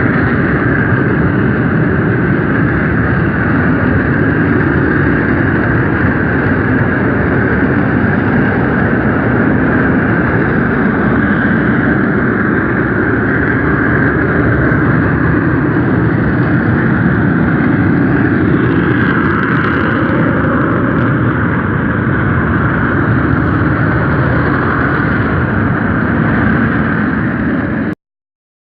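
Steady loud rushing rumble from the crater of Mount Bromo, the volcano venting gas; it stops abruptly near the end.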